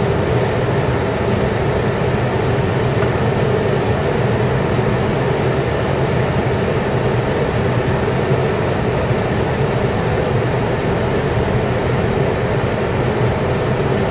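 Steady flight-deck noise of an Airbus A320 on final approach: an even rush of air over the nose mixed with the engines' low hum at approach power, unchanging throughout.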